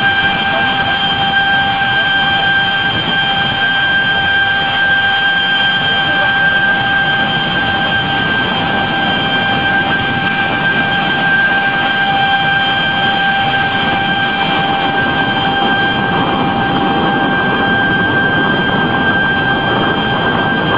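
Tsunami floodwater rushing through the streets in a loud, steady rush of noise, with a steady high-pitched tone held unchanged above it.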